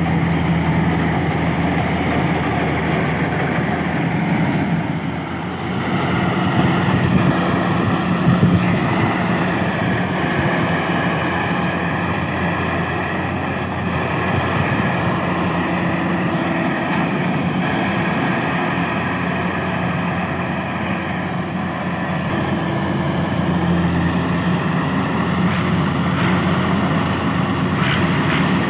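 Kubota DC70 combine harvester's diesel engine running steadily under a continuous wavering machine whine.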